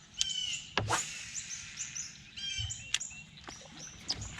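Several birds calling at the lakeshore. One repeats short, high, down-slurred chip notes, about two a second, while another gives a rapid stuttering call twice. A few sharp knocks break in, the loudest about a second in.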